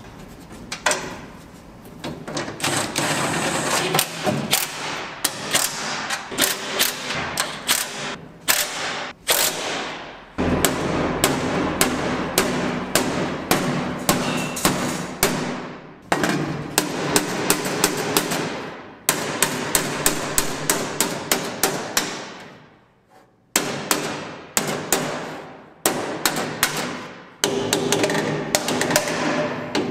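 A hammer striking steel parts of a grain auger: many sharp, ringing blows in quick runs, broken by a few brief pauses.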